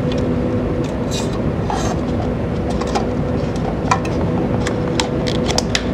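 Styrofoam cup calorimeter being handled as the temperature probe and lid are fitted back on: a couple of brief rustles in the first two seconds, then several small clicks and taps. A steady mechanical hum runs underneath.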